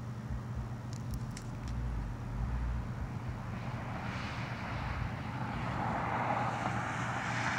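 A car approaching and driving over a railroad grade crossing, its road noise building over the last few seconds, above a steady low hum.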